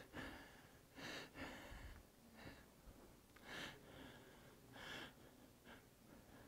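Near silence with a few faint, short breathy noises.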